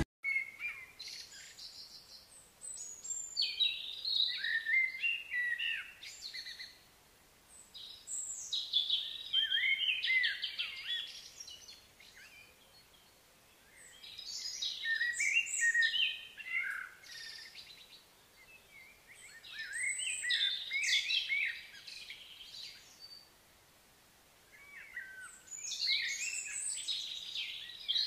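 A songbird singing: five runs of quick, warbling, high-pitched notes, each lasting two to three seconds and coming about every six seconds, over faint steady outdoor background noise.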